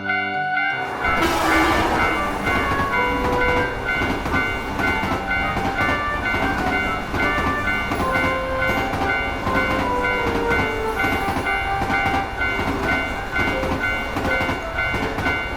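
Train passing sound effect, a loud rumbling clatter over the rails, with a railroad-crossing bell ringing steadily and a tune playing over it.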